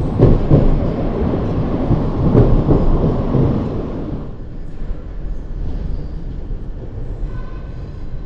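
Electric commuter train, a Civia multiple unit, passing close by at speed: loud wheel and running noise for about the first four seconds, then falling to a quieter steady rumble.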